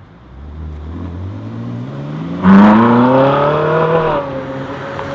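Car engine accelerating, its pitch climbing steadily, turning sharply louder about two and a half seconds in as it keeps rising, then levelling off and easing near the end.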